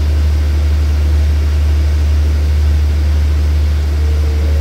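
Diesel engine of a standing SRT passenger train idling, a steady low rumble. Faint steady tones join in near the end.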